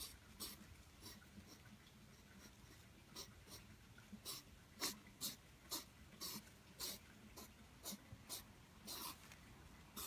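European hedgehog huffing during courtship: a long, uneven run of short, sharp puffs of breath, about two a second, some louder than others.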